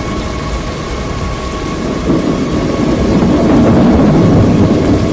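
Thunderstorm: steady rain noise, with a low rumble of thunder building about two seconds in and growing louder.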